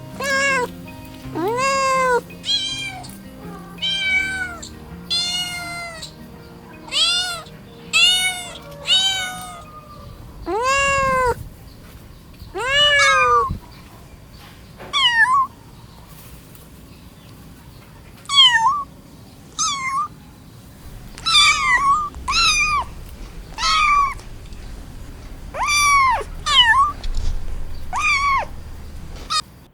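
Cats meowing again and again: about twenty short meows, each rising and falling in pitch, some high and thin, some lower, with a few seconds' lull about halfway through. Faint background music runs beneath the first half.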